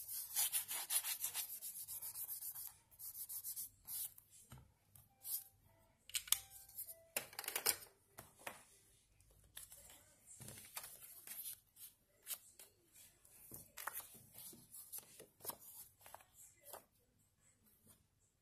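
Quick rubbing strokes on paper, several a second, as colour is worked onto a journal page; they stop after about two and a half seconds. Then scattered paper rustles and light taps as pages and photo prints are handled and laid down.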